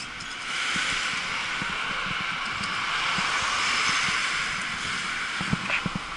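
Road traffic: a steady hiss of tyres on asphalt that swells over a few seconds as a car passes, then eases off, with a few light knocks near the end.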